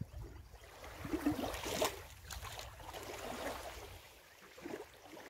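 Small waves of lake water lapping gently at a sandy, rocky shore, faint and irregular.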